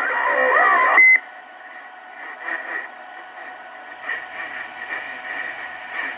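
CB radio receiver's speaker: a thin, narrow-band received transmission with sliding tones cuts off about a second in with a short high beep, a roger beep. It drops to faint static with weak distant skip signals fading in and out.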